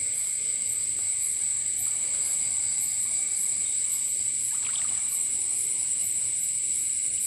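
Night insects, crickets among them, keeping up a steady high-pitched chorus, with a faster pulsing trill above it, over a faint sound of running stream water.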